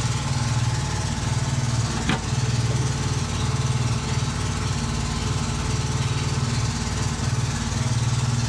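Air compressor running steadily with a low hum, pumping air into a T-54M tank's air-start system as its pressure builds. A single short click about two seconds in.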